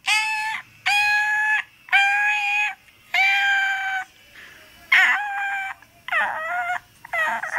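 A run of seven high-pitched, drawn-out whining cries, each under a second long with short gaps between them. The first four hold a steady pitch; the last three waver and fall.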